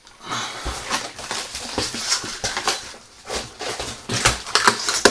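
Rustling and irregular knocks of packaging being handled and pulled open to unpack an item from a box.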